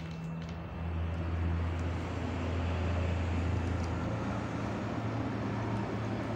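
A low, steady engine rumble that grows louder about a second in and shifts slightly higher in pitch partway through.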